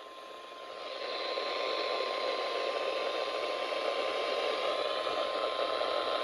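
Weather radio receiver hissing with static on a weak signal, swelling about a second in and then holding steady. Under the hiss runs a faint steady tone near 1 kHz, matching the 1050 Hz warning alarm tone that comes before an alert.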